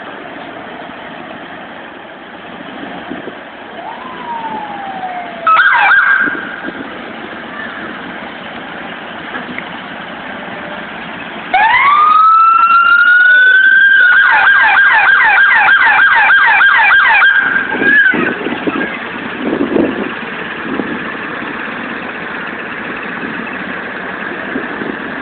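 Police siren: a short whoop, then a loud rising wail that holds steady before switching to a fast yelp of about three to four sweeps a second and cutting off suddenly. Steady street and crowd noise runs underneath.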